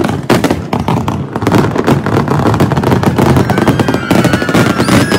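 Aerial fireworks display going off: many rapid, overlapping bangs and crackles over a low rumble.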